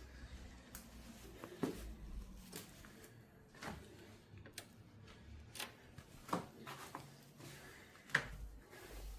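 Footsteps over debris and boards, short knocks and crunches about once a second, over a low rumble.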